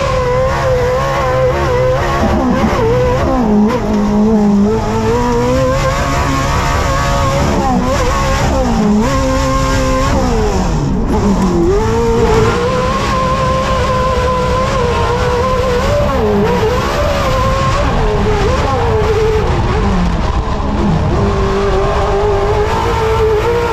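A 900-horsepower Pro4 short-course off-road race truck's V8 engine at racing speed, heard on board, its revs rising and falling continually with throttle and gear changes, with a deep drop and climb about ten seconds in.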